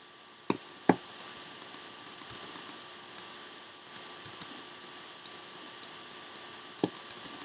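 Computer keyboard keys and mouse buttons clicking: irregular light taps, with a few sharper clicks about half a second in, just before a second in, and near the end.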